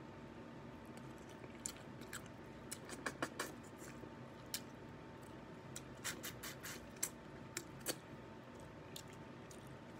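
Crab being eaten by hand: scattered small cracks, clicks and scrapes of crab shell being pulled apart, with some chewing, over a faint steady hum.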